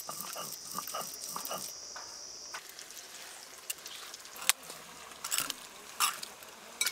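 Insects buzzing in a high steady drone that stops about two and a half seconds in, under scattered clicks and scrapes from a stone grinding slab and its hand stone being worked.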